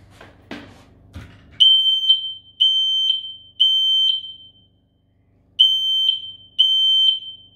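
Ceiling smoke alarm sounding on its test button: a loud, high-pitched electronic beep in groups of three with a short pause between, starting about a second and a half in after a couple of light knocks. The alarm working on test.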